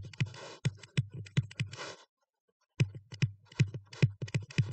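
Stylus tapping and scratching on a tablet screen while handwriting: a quick, irregular run of clicks with short scraping strokes, pausing briefly about two seconds in.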